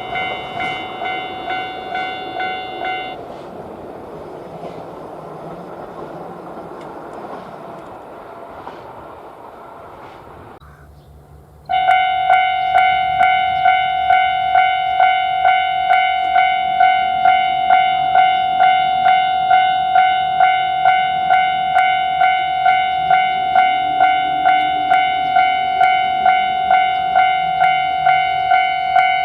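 Japanese railway level-crossing warning bell ringing 'kan-kan' at about two strokes a second. It stops about three seconds in while the rumble of a passing train dies away. After a break another crossing bell starts, louder, and rings steadily.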